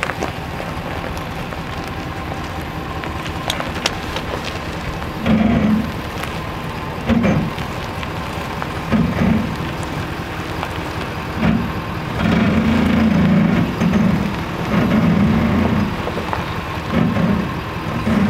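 Ford Super Duty pickup's engine running as the truck backs slowly up to the trailer hitch: a steady rumble with repeated short louder pulses that come nearly together for a few seconds in the second half.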